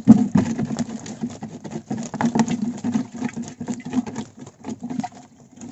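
Freshly caught fish flapping and slapping against a wire-mesh fish trap and the floor of a wooden canoe: a rapid, irregular patter of small knocks.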